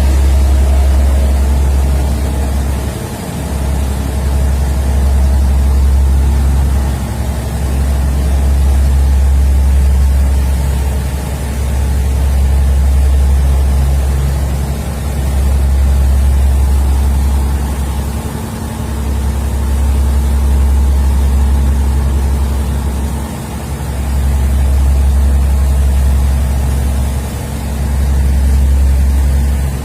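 Tugboat engine droning steadily, with a heavy low rumble that swells and eases every few seconds.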